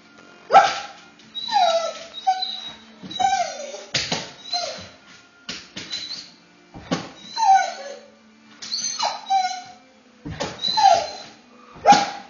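A dog whining and yelping over and over, short cries that fall in pitch, about one every second, as it jumps up toward animals on the TV.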